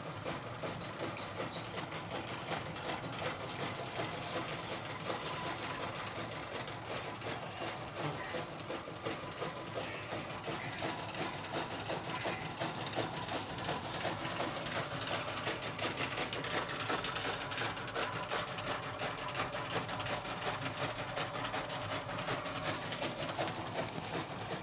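A group of young rabbits chewing fresh greens: a continuous, dense, rapid clicking and crunching from many mouths at once.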